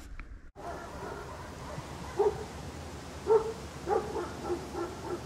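A dog barking in short barks, a few single ones and then a quicker run near the end, over a steady hiss.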